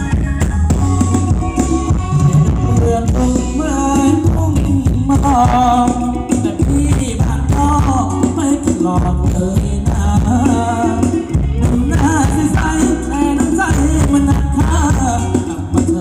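Thai ramwong dance music from a live band: a voice singing over a steady drum beat, with high rattling percussion throughout.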